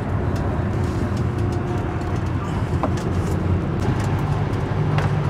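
Steady road and engine rumble heard inside a bus cruising on a freeway, with a few faint rattles.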